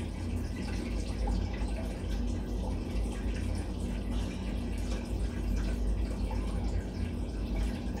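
Steady low background rumble with a faint constant hum and hiss.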